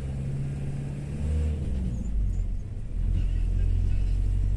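Low rumble of engine and road noise inside a moving vehicle, growing louder about three seconds in.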